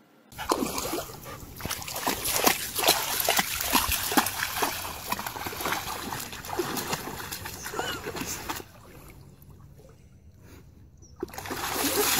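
A dog splashing as it wades and bounds through shallow water, a quick run of splashes and sloshing. It eases off for a couple of seconds near the end, then picks up again.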